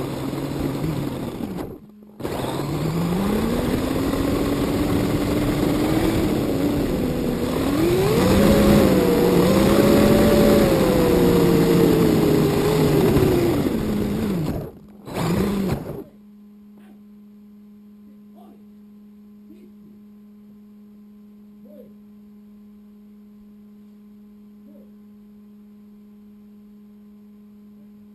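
A 1:10 RC car's motor heard through its onboard camera as it drives over rough ground: a whine that rises and falls with speed over a rough rolling noise, dropping out briefly twice. About two-thirds of the way through the car stops and the driving noise cuts off, leaving a steady electrical hum with a few faint chirps.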